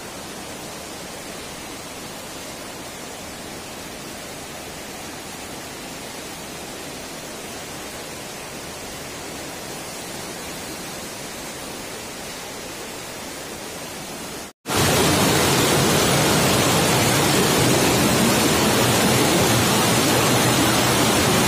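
Fast floodwater rushing and churning, a steady noise. It breaks off about fifteen seconds in and comes back much louder.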